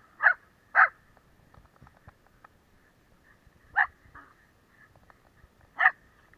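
A dog barking in play: two short barks in quick succession at the start, then single barks about three seconds and five seconds later.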